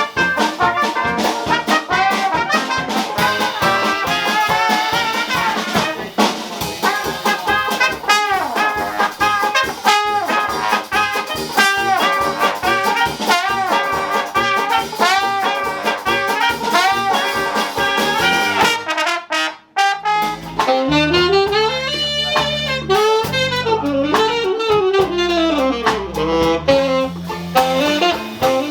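A Dixieland jazz band playing live, with trumpet and trombone leading the ensemble over a steady beat. About twenty seconds in, the music breaks off for a moment and a different passage follows: a single horn line winds over a low bass line.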